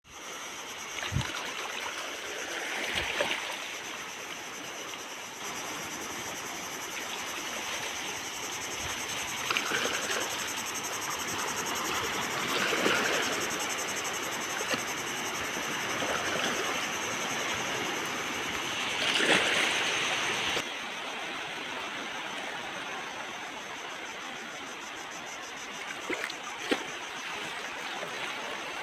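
Small waves washing on a shore, swelling every few seconds, with crickets chirping steadily in a continuous high trill behind them.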